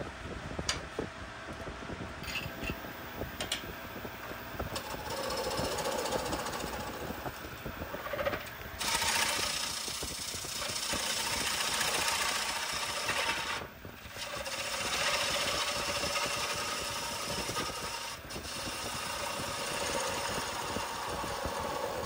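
Bowl gouge cutting the inside of a spinning maple bowl on a wood lathe, over the steady run of the machine. The cut is lighter at first, then from about a third of the way in it becomes a louder, steady rushing hiss of shavings peeling off, broken by two short pauses between passes.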